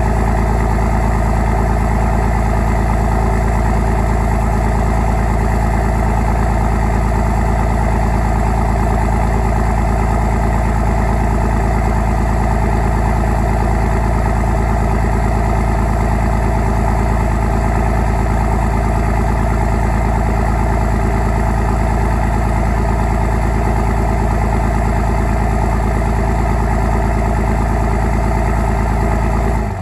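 5.9 common-rail Cummins inline-six turbodiesel idling steadily and loudly, shortly after a cold start.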